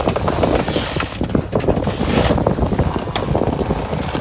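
Wind buffeting the microphone and rushing past the sails aboard a sailing catamaran under way. It surges in uneven gusts.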